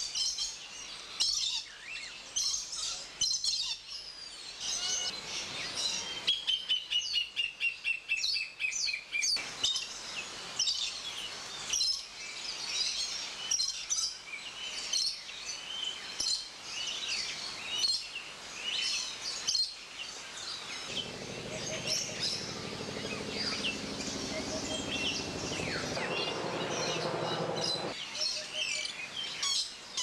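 Many birds chirping and calling, with a slow falling series of notes about six seconds in. A low hum rises beneath the birdsong from about 21 to 28 seconds.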